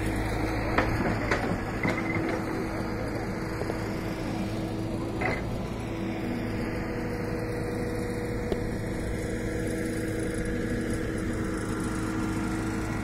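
Tata Hitachi hydraulic excavator's diesel engine running steadily at a low hum, with a few sharp knocks in the first couple of seconds.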